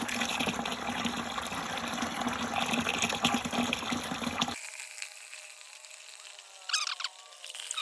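Hot water running out of a combi water heater's tank outlet into a container, a steady gush that cuts off abruptly about four and a half seconds in. A brief squeak follows near the end.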